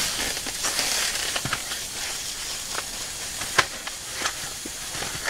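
Wood fire burning in a small steel wood stove: a steady hiss with scattered sharp crackles and pops, one louder pop about three and a half seconds in.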